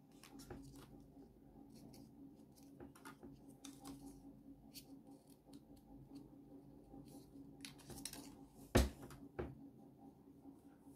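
Faint rustling and soft ticking of folded paper origami modules being handled and slotted into one another. About 9 seconds in comes a sharp knock on the table, followed by a smaller one.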